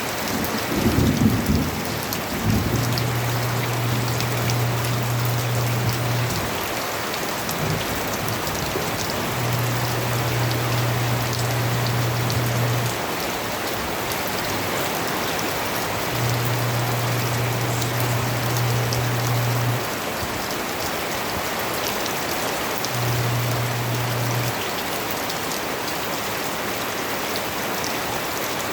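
Steady rain falling, an even dense noise throughout. A low hum comes and goes four times, each lasting a few seconds, and there is a brief low rumble in the first couple of seconds.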